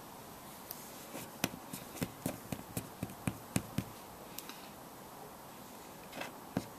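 Small sharp clicks and taps from hands at work, about a dozen in quick, uneven succession between one and four seconds in, then a short rustle and a click near the end.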